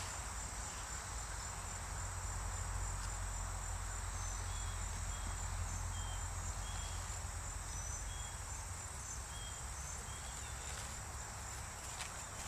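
Outdoor ambience of insects chirring steadily at a high pitch, with a few short chirps and a low background rumble; a few faint clicks near the end.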